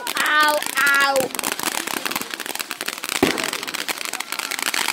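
Ground fountain fireworks spraying sparks with a dense, continuous crackle, and one louder pop about three seconds in. A child's high voice calls out briefly at the start.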